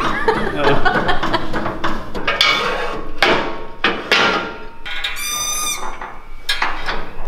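Hydraulic motorcycle lift table being raised by its foot pump pedal: several clanking pump strokes about a second apart, with a brief high squeak partway through.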